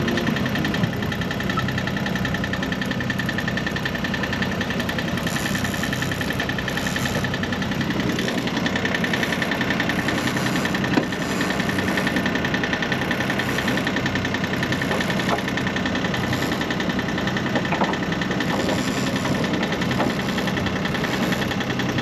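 Sailboat's inboard auxiliary engine running steadily under way while motor sailing, with a thin, steady high-pitched whine over the engine sound.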